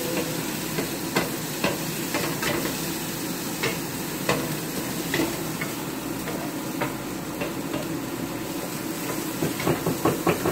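Chicken, rice, asparagus and garlic frying and sizzling in a hot pan, with a utensil now and then knocking and scraping against the pan. Near the end the knocks come quickly, as the food is stirred fast.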